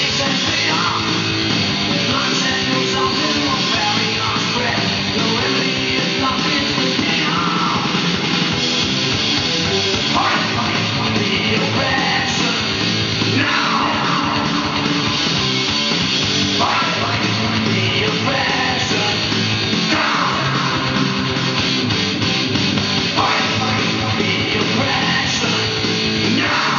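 Rock music with vocals playing from a vinyl LP on a Technics SL-20A turntable.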